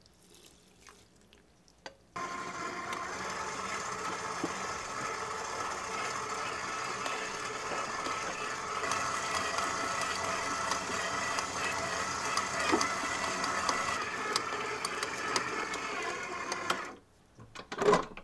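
Stand mixer with a dough hook kneading milk bread dough: a steady motor whine with scattered small knocks, as butter works in and the dough comes together into a ball. It starts suddenly about two seconds in, after a faint pour of liquid, and stops just before the end, followed by a couple of sharp knocks.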